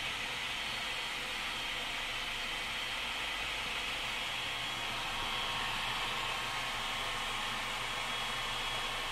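Countertop food processor motor running steadily with a constant high whine as it blends a thick black bean burger mixture.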